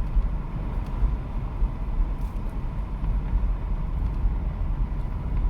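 Steady low engine and road rumble heard from inside the cabin of a 2015 Chevrolet Impala Limited while it drives, with a faint steady whine above it.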